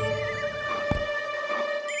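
Cartoon background music of long held notes with a wavering, vibrato-like high tone, and a single soft knock about a second in.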